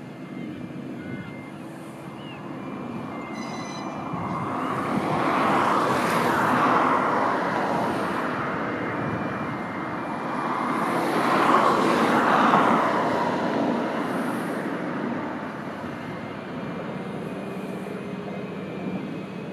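Two vehicles passing by, each a swell of rumble and hiss that rises to a peak and fades over a few seconds, the first about six seconds in and the second about twelve seconds in.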